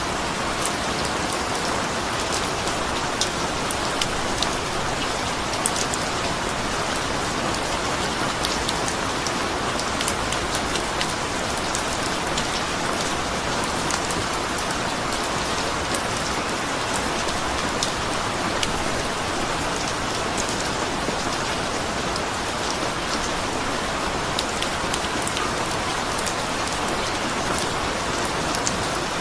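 Steady rainfall, with many individual drops pattering on a surface over an even hiss.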